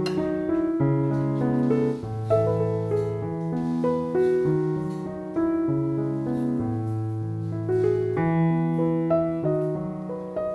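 Background piano music: a slow melody over a bass line, one note after another.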